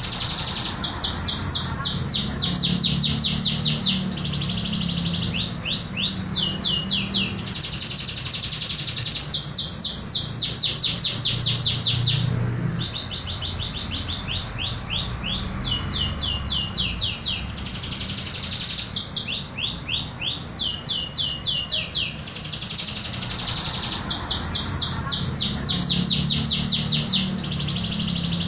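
Local domestic canary singing its own natural song with no learned imitations of other birds: a long continuous run of fast trills of rapidly repeated notes, alternating every second or two with steadier buzzy rolls, over a faint low hum.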